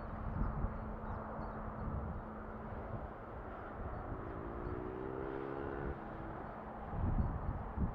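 Distant outdoor rumble of rail and road traffic, with a steady low hum and a brief rising whine about four seconds in.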